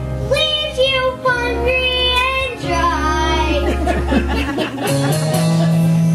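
Girls singing a children's song over backing music; the singing stops a little past halfway, and the backing music goes on alone into a long held low note.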